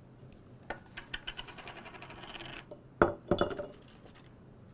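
Oreo cookies dropping and clinking into a glass mason jar, with a quick run of light ticks, then a louder knock about three seconds in and a few smaller knocks after it.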